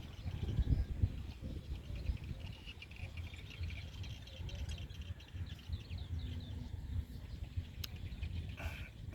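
Small animals chirping in a field at night, a rapid trill of short high chirps that thins out after about six seconds, over a steady low rumble.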